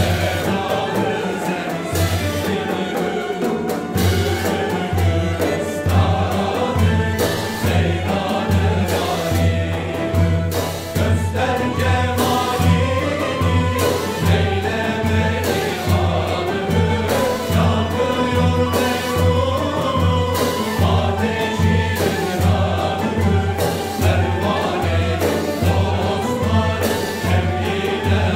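Male choir singing a Bektashi nefes in Hüseynî makam in unison, accompanied by ney, ud, kanun and violin, with large frame drums keeping a steady low beat of about two strokes a second.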